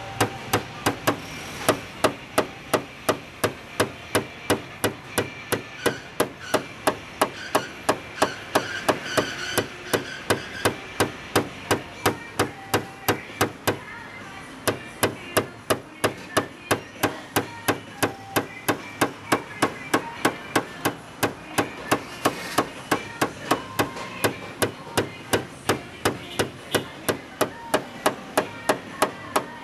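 Steady, rapid light hammer taps at about three a second, with a brief pause about halfway: paintless dent repair tapping on a car body panel's sheet metal.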